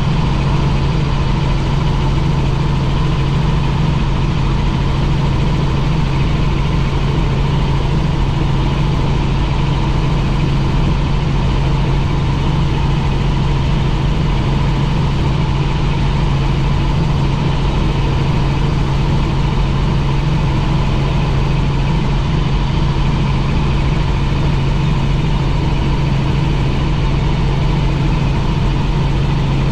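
Helicopter in flight: a steady, unchanging drone of engine and rotor, with a strong low hum and a fainter, higher steady whine.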